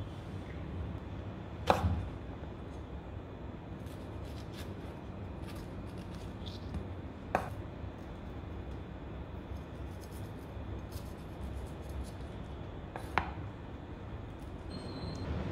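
A broad-bladed kitchen knife knocking on a wooden cutting board three times, several seconds apart, between small clicks and rustles of green chili peppers being split and seeded by hand. A steady low hum sits underneath.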